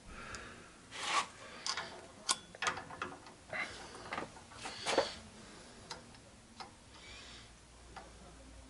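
Scattered light metallic clicks and taps, irregularly spaced, from hand tools being handled as a torque angle gauge and wrench are fitted to a connecting-rod cap nut.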